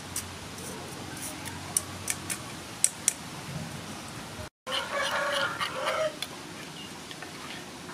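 A rooster crowing once for about a second and a half after the sound drops out briefly about halfway. Earlier come a few sharp clicks from a metal spoon knocking against a wire strainer over a clay mortar.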